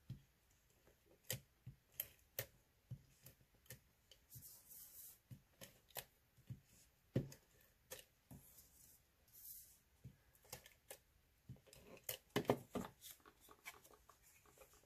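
Faint handling of cardstock pieces on a crafting mat: light taps, clicks and slides of paper, with two short hissing strokes of a Stampin' Seal tape runner laying adhesive, and a quick run of taps near the end.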